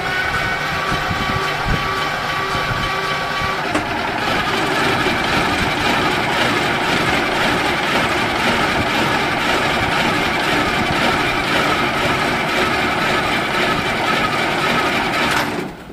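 The 1938 Fageol logging truck's engine running, loud and steady. A few steady whining tones over it stop about four seconds in, and the sound cuts off suddenly near the end.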